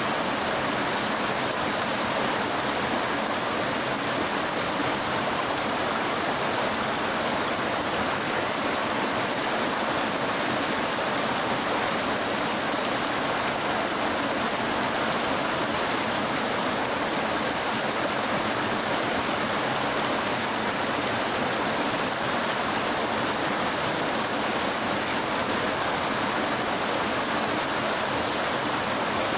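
Mountain stream rushing steadily over rocks and small cascades.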